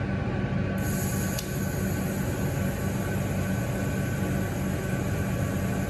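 TIG welding arc on 316L stainless pipe, struck about a second in for a fusion tack: a steady high hiss over a constant low hum. The amperage is too low to fuse the tack properly, by the welder's own account.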